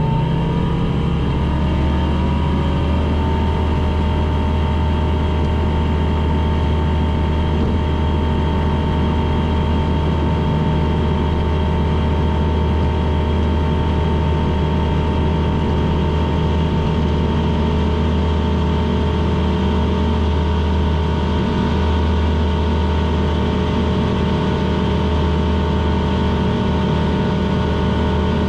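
Aquila A211 GX light aircraft's Rotax 912 four-cylinder engine and propeller droning steadily at constant power.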